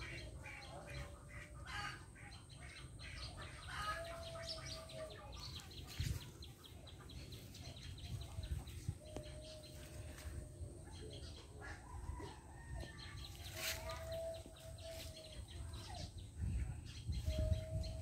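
Birds calling: a long, level call of about a second repeats every four to five seconds, over quick chirps and background noise.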